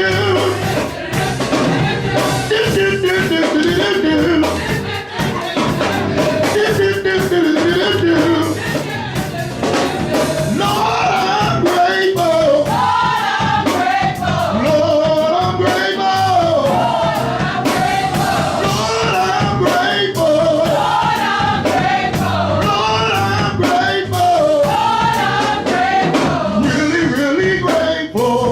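Live gospel music: singing over a band playing with a steady beat.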